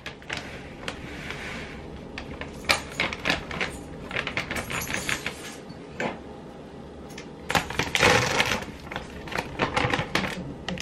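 A bag of almond flour crinkling and rustling as it is handled and tipped to pour into a glass measuring cup, with light clicks and taps throughout. The loudest rustle comes near the end.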